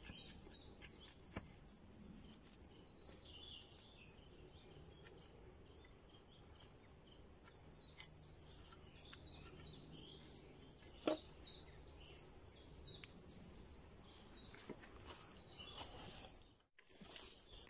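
Woodland birds singing, with quick series of short high chirps repeating through the whole stretch. A few sharp knocks of a small hatchet biting into a green wood stick, the loudest one about two thirds of the way through.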